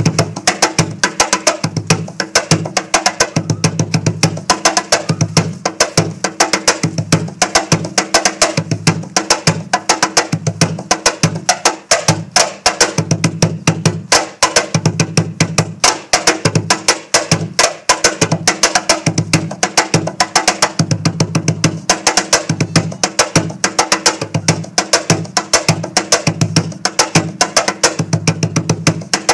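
Peruvian cajón (a wooden box drum with a body of laurel and canela negra and a solid cedar front plate) played by hand in a steady, busy rhythm. Deep bass thumps alternate with many sharp, crisp slaps.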